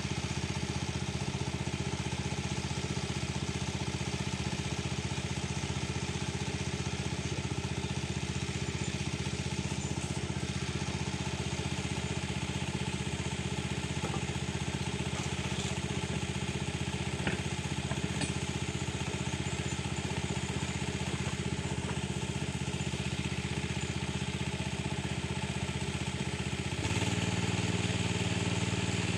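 An engine running steadily at constant speed. A couple of seconds before the end its note shifts and gets slightly louder.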